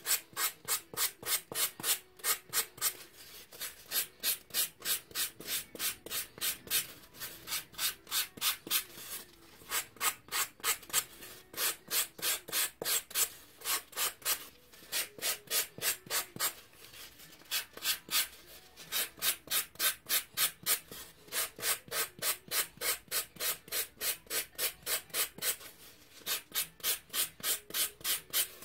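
Hand sanding: a folded piece of sandpaper is rubbed back and forth over a pink ball-jointed-doll leg core in quick, even strokes, about three a second, with a few short pauses.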